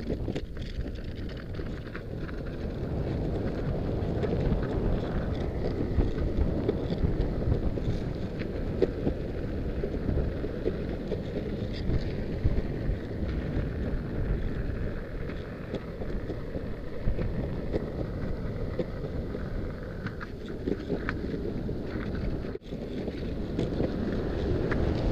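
Wind buffeting the microphone over the rumble of longboard wheels rolling on asphalt, a steady noise with a brief dropout near the end.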